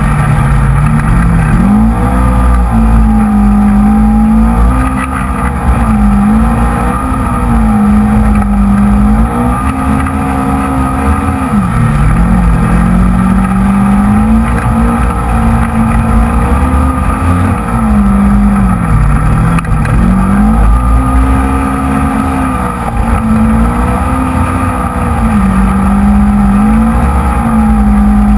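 Polaris RZR XP 900 side-by-side's twin-cylinder engine working hard in sand, its pitch climbing and dropping every two to three seconds as the throttle is opened and lifted. Heard from inside the open cab over a continuous low rumble.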